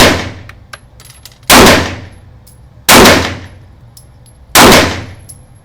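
Four handgun shots, about a second and a half apart, each very loud with a short echoing ring-out, plus a few faint sharp clicks between them.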